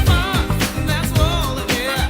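Old-school R&B and soul dance music with a steady beat, bass and a singing voice.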